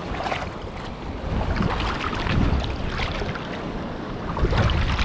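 Wind buffeting the microphone over small waves and shallow sea water splashing and lapping, with the gusts swelling louder near the end.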